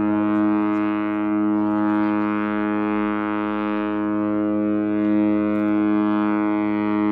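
Cruise ship Costa Diadema's horn held in one long, steady blast, two notes sounding together as a chord.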